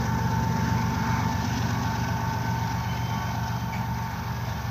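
Diesel locomotive at the rear of a loaded coal train rolling away, its engine drone and the rumble of wheels on rail fading slowly, with a thin steady whine over it that fades out after about three seconds.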